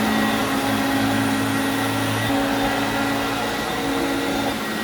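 Vacuum cleaner running steadily with a fresh drive belt, on a test run after the belt replacement: a continuous motor hum under an even rush of air.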